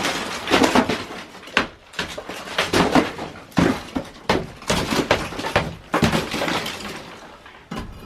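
Old wooden lath and plaster being torn out: a run of irregular cracks, snaps and crunches with crumbling debris between them.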